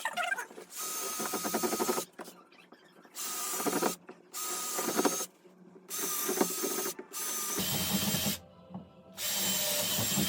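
Power drill running in short bursts of about a second each, six or so times with brief pauses between, as screws are driven to mount a wall clothing rack.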